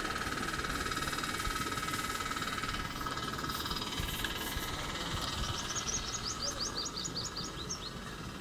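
Outdoor ambience with a low, irregular rumble and a steady high whine that stops about three seconds in. Later a bird sings a quick trill of about fifteen short, high chirps.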